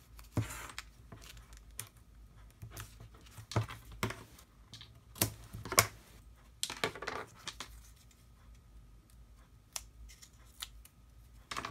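Scattered light taps, clicks and paper rustles from handling a small cardstock door piece and backing it with foam tape on a cutting mat.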